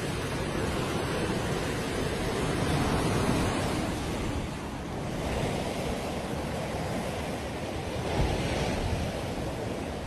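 Sea surf breaking and washing up on a beach: a steady rushing that swells louder about three seconds in and again near the end.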